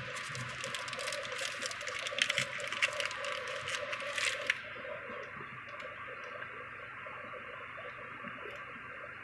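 Crinkling and rustling of a plastic parts bag being handled and opened, with sharp crackles, for about four and a half seconds. It then stops, leaving only a few faint small clicks of handling.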